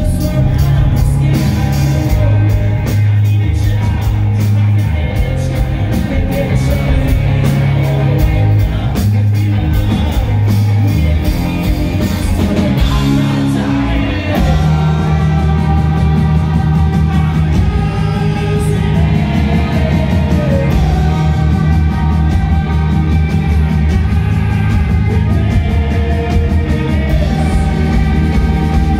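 Rock band playing live and loud: electric guitars, bass guitar and a drum kit, with a male lead vocal singing over them. The sung line becomes more prominent about halfway through.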